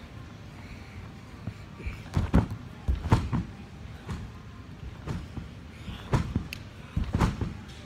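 Repeated thuds of feet bouncing on a tumble track, often coming in close pairs. The loudest ones fall about two to three seconds in.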